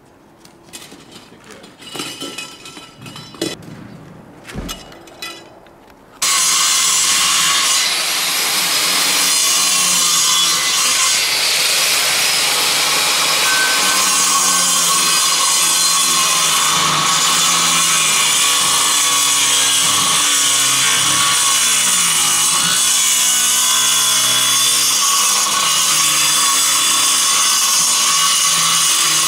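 A few light knocks, then about six seconds in a large corded angle grinder starts up and cuts continuously into the edge of the slab formwork, its pitch wavering as the disc is loaded.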